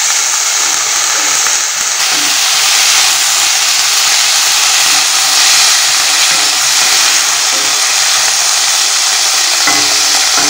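Chopped vegetables (cauliflower, green peas, carrot, onion) sizzling steadily in hot oil in a metal kadhai, stirred and turned with a wooden spatula.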